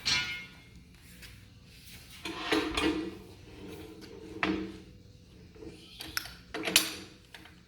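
Hand tools clanking and scraping on steel pipe: about five separate metallic knocks and rasps, some briefly ringing, the loudest near the end.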